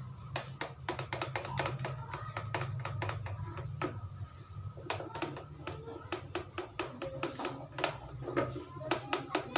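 A steel spoon whisking yogurt and milk in a bowl, with a fast, irregular clatter of the spoon clicking against the bowl's sides. A low hum runs under the first few seconds.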